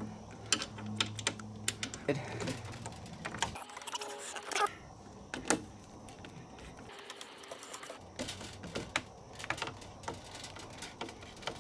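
Hand screwdriver driving screws through a screen door cross bar's end mount into the metal screen door frame: scattered small clicks and scrapes, irregularly spaced. A faint low hum sits under the first few seconds.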